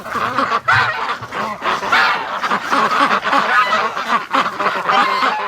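A flock of domestic geese honking, with many loud, overlapping calls and ducks calling among them.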